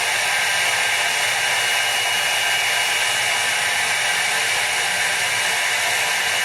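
Hair dryer running steadily: an even, unbroken hiss of blown air.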